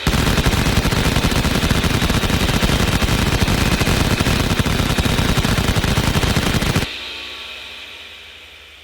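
Vulcan rotary cannon firing one long unbroken burst, the shots merging into a continuous buzzing stream. It stops abruptly near the end and is followed by a fading whine.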